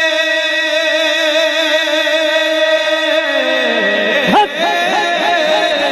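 A man singing a naat into a microphone through a sound system, holding one long note. The note wavers and sinks in pitch, breaks off sharply about four seconds in, and is followed by a wavering run of notes.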